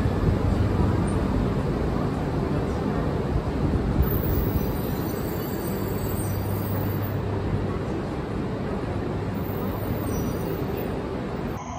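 E3-series Tsubasa Shinkansen pulling slowly out along the platform, a steady rumble of wheels and traction motors with a low hum.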